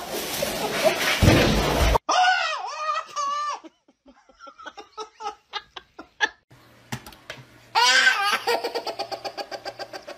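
A baby laughing hard in quick repeated bursts from about eight seconds in, fading towards the end. Before it come a couple of seconds of loud noise with a low rumble, a brief high-pitched voice, and a run of short quiet chuckles.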